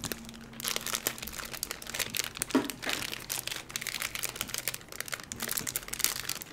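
Plastic ice cream wrapper crinkling as it is pulled and peeled open by hand, in a dense, continuous run of quick crackles.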